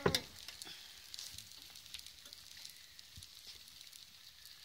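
Pancake batter cooking in a hot pan, with a faint, steady sizzle and small crackles as it bubbles. A single sharp knock right at the start.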